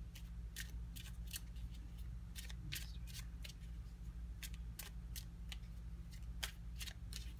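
Tarot cards being handled out of view, giving a run of sharp, irregular clicks and snaps, two or three a second, over a low steady hum.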